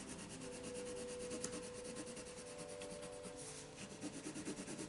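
Orange colored pencil rubbing on paper in soft shading strokes; the strokes come quicker and more distinctly near the end.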